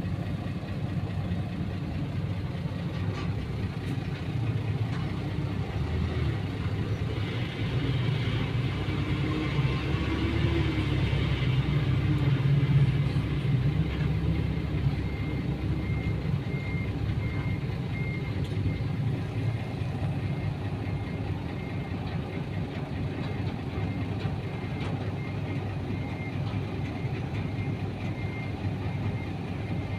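Heavy vehicle engine running steadily, swelling louder around the middle, with a repeating high-pitched beep through the second half.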